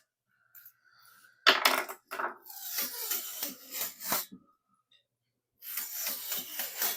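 Old adhesive rim tape being peeled and pulled off a bicycle rim, a crackling, tearing noise with sharp clicks. It comes in two spells: one starts about a second and a half in, the other near the end.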